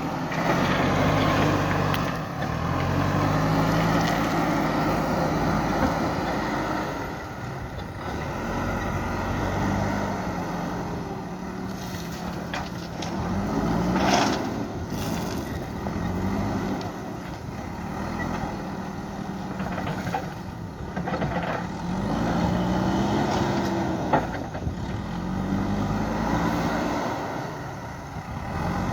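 JCB 3DX backhoe loader's diesel engine running and revving up and down in repeated swells as it works its hydraulics loading gravel, with a few sharp knocks.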